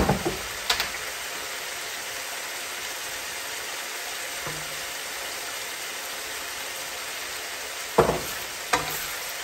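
Chicken innards sizzling steadily as they stir-fry in a pan, with sharp clacks of the stirring utensil against the pan at the start and twice near the end.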